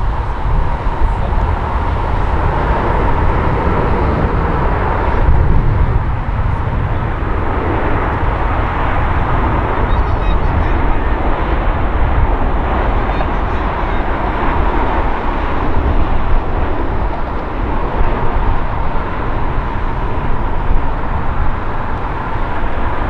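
Boeing 787-9 airliner's jet engines on final approach and landing: steady, continuous jet noise with a held mid-pitched tone over a heavy low rumble.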